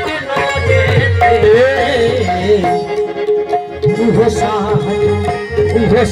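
Live folk music: harmonium playing with a steady held note underneath, a dholak drumming, and a male voice singing ornamented, wavering phrases. The drum and voice thin out briefly about three seconds in, then come back.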